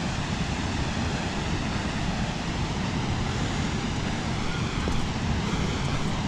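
Steady rushing roar of a waterfall and fast river water, an even noise with no breaks.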